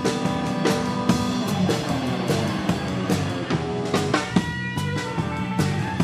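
Small live band playing a rock tune through a PA speaker, a drum kit keeping a steady beat under electric guitar.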